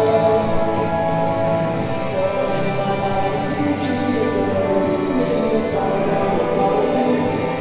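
Music with sustained instrumental notes and a regular beat.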